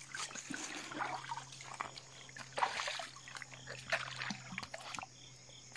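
Shallow water trickling, with irregular small splashes and sloshes. A faint steady low hum runs underneath.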